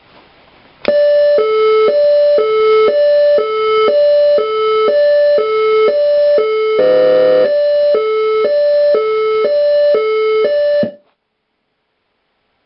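Signal Vehicle Products SA-441 Magnum electronic siren sounding a hi-lo two-tone, alternating between a higher and a lower tone about once a second. There is a brief harsher buzzing tone in the middle. It starts about a second in and cuts off suddenly near the end.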